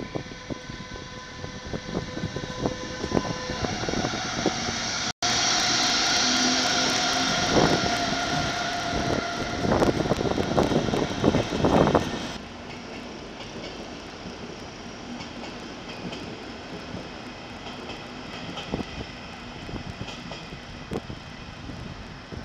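Electric trains in a station. First a DB class 101 electric locomotive moves along the platform with a steady electric whine of several tones. After a cut, a train passes close by, loud, with rapid wheel clatter over the rail joints for several seconds. After another change at about twelve seconds, Intercity coaches roll by more quietly.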